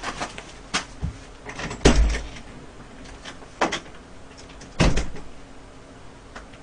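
Scattered knocks and thumps of a person moving about off to the side. The heaviest, a low thud, comes about two seconds in, and another sharp knock comes about five seconds in.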